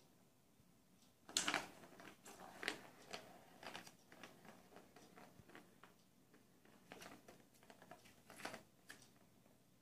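Light, irregular plastic clicks and taps from a cat batting at the ball inside a Catit Senses Super Roller Circuit track, the ball knocking against the plastic track. The loudest taps come about a second and a half in.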